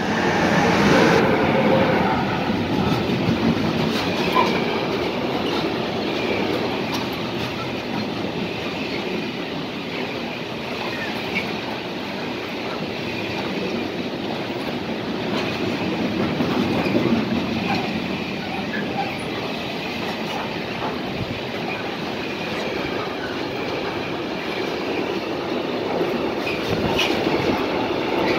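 Freight train passing close by: the electric locomotive goes past about a second in, the loudest moment, followed by a long string of intermodal pocket wagons carrying lorry trailers, their wheels rolling steadily over the rails.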